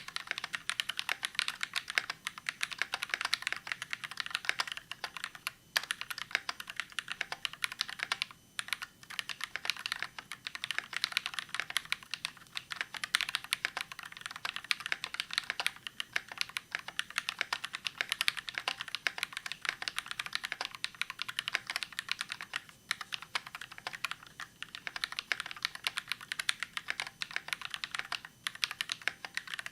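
Fast, continuous typing on a KBD67 mkii custom mechanical keyboard with NovelKeys Cream linear switches, a brass plate and PBT keycaps: a dense stream of key clacks. The typing pauses briefly twice, about a third of the way in and again about three quarters of the way in.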